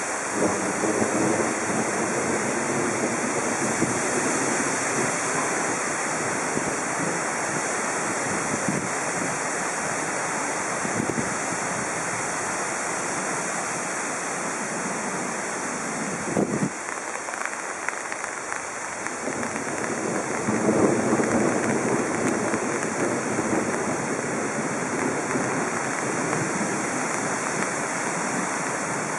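Strong thunderstorm gust-front wind rushing through tall poplars and leafy trees. It is a steady, loud rush of noise that swells with the gusts, most strongly about 20 seconds in. There is a brief buffet of wind on the microphone about halfway through.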